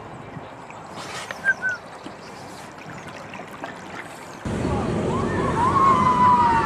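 Water sloshing and gurgling around a small ride boat, getting suddenly much louder about four and a half seconds in, with a few short squeaky glides over it; two brief high chirps come a little earlier.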